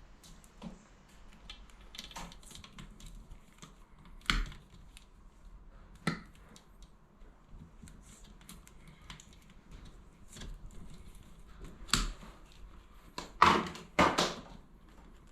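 Hand tool clicking and snipping while stripping the insulation off electrical cable: scattered small clicks, with sharper snaps about four, six and twelve seconds in and a louder pair of rasping snips near the end.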